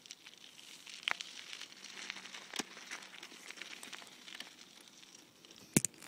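Faint crackling and rustling with a few sharp clicks, the strongest about a second in, midway and near the end: handling noise from a handheld phone being moved about.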